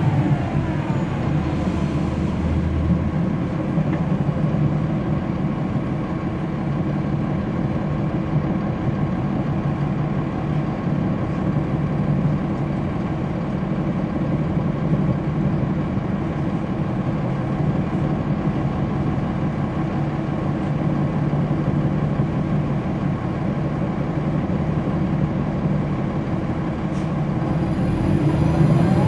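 Cummins ISL9 diesel engine of a 2010 NABI 40-foot suburban transit bus, heard from the back of the cabin, running with a steady drone. It grows somewhat louder over the last couple of seconds.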